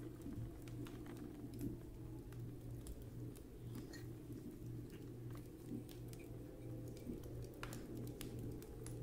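Faint small clicks and taps of a tobacco pipe and a small metal tool being handled, over a steady low hum; one slightly sharper click comes near the end.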